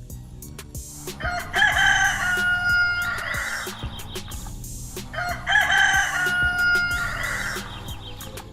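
A rooster crowing twice, each crow about two and a half seconds long with a rising start, a held note and a falling tail, over background music with a steady beat.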